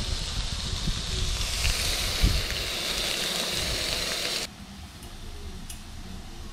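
Strips of beef sizzling in a nonstick frying pan, a steady hiss with a single knock about two seconds in. The sizzling cuts off abruptly about four and a half seconds in, leaving a much quieter background with a few faint clicks.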